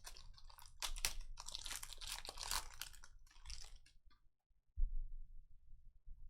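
Trading-card pack wrapper crinkling and tearing as it is opened, with cards being handled, for about four seconds, then a single dull thump.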